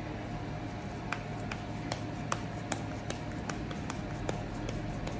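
Hands patting and pressing a soft minced-meat kebab patty into shape, a series of light wet pats about two or three a second, over a steady low background hum.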